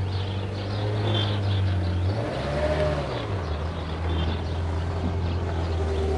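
Ferrari Mondial T Cabriolet's V8 engine running as the car pulls away at low speed. The engine pitch rises and falls briefly about two to three seconds in, then runs lower.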